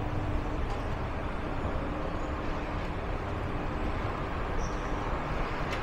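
Steady low rumble and hum of a shopping-mall interior, with an escalator running.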